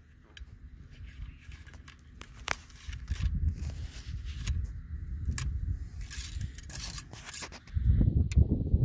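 Wooden ramrod seating a greased-patched round ball in the barrel of a muzzle-loading Pennsylvania percussion rifle: a run of sharp ticks and short scrapes as the rod works in the bore. A louder low rumble comes in near the end as the rod is drawn out.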